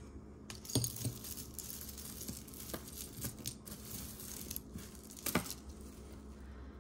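Hands sorting through a pile of metal costume jewelry: chains and pieces rustling and clinking against each other, with a few sharper clicks about a second in, near three seconds and about five seconds in.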